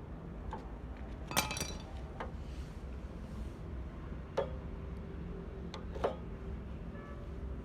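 Small petrol generator engine running steadily after its carburettor cleaning. Three sharp clinks sound over it, about a second and a half, four and a half and six seconds in.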